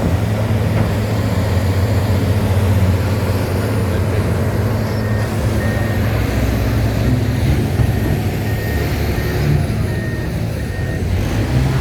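Heavy mining machine's diesel engine running steadily under load, with a reversing alarm beeping at an even pace from about five seconds in until about eleven seconds.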